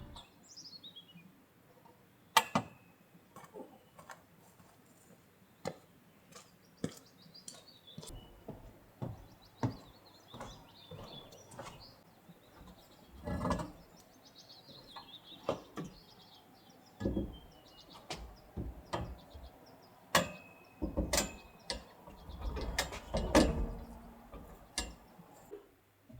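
Small birds chirping in short falling calls, among scattered sharp clicks and knocks and a few duller thumps in the second half.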